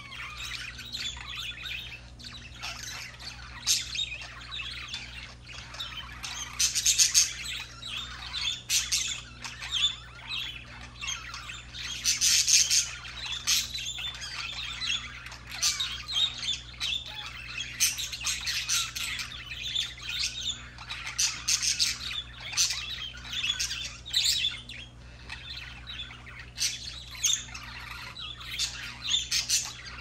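Pet budgerigars warbling and chattering without a break, with louder squawky bursts every few seconds.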